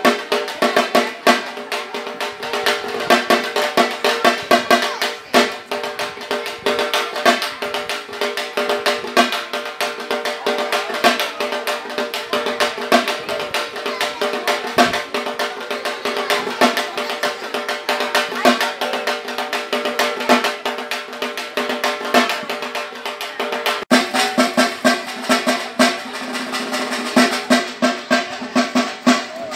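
Music led by fast, rolling drumming over a steady held drone; it cuts out for a moment once, late on.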